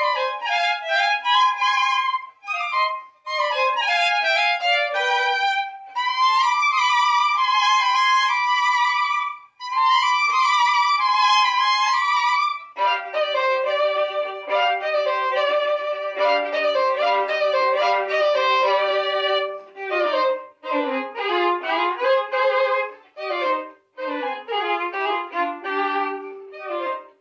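Violin duet: two violins playing quick running passages, then from about halfway through a held low note under a slower moving line, then quicker notes again near the end.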